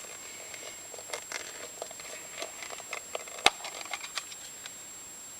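Light rustling and scattered small clicks from hands handling fire-starting tinder (char cloth and dry leaves), with one sharper click about three and a half seconds in.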